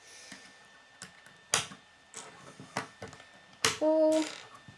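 K'nex plastic rods and connectors clicking and snapping together by hand against a wooden tabletop: scattered sharp clicks, two of them loud, about a second and a half and nearly four seconds in. A brief pitched tone follows just after the second loud snap.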